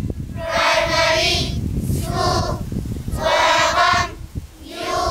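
A large group of schoolchildren singing together in high voices, in short phrases with brief pauses between them, with wind rumbling low on the microphone.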